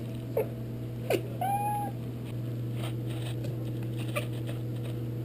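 Domestic cat calling: two quick calls falling in pitch, then a short, level meow about a second and a half in.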